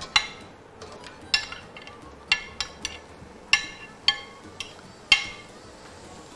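Utensil clinking against a metal pan while sliced mushrooms are stir-fried: a series of sharp, ringing clinks spaced irregularly about every half second to a second.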